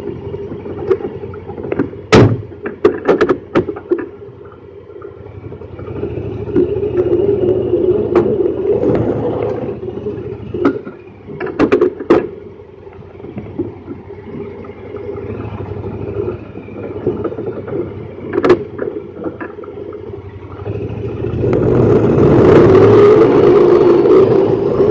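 Honda Pioneer 1000-5 side-by-side's engine running steadily at idle, with several sharp clunks and rattles from the cab as the driver climbs in. About three-quarters of the way through, the engine and the rattle of the body rise as the machine pulls away down the dirt trail.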